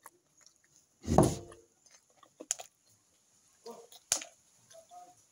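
Sparse eating-by-hand sounds: wet mouth smacks and small clicks while chewing, with one short, loud, low vocal sound about a second in.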